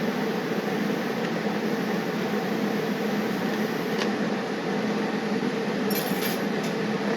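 A steady mechanical whir, like a running fan, with a light click about four seconds in and a few faint clinks near the end.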